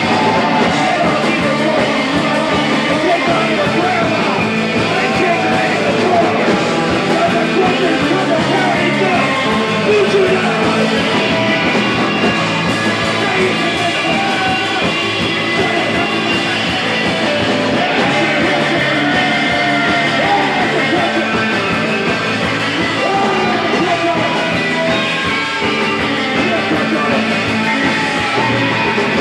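Surf and garage rock band playing live at full volume, electric guitars and organ over a steady beat, without a break.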